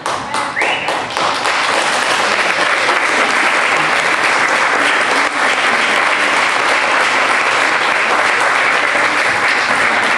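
Theatre audience applauding: a few separate claps, swelling within about a second into full, steady applause.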